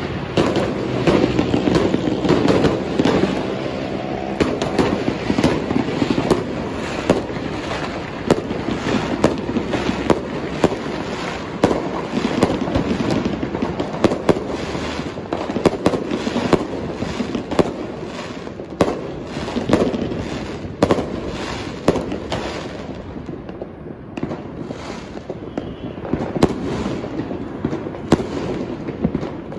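Fireworks going off in a dense, continuous run of bangs and crackles, several a second, easing slightly about three-quarters of the way through.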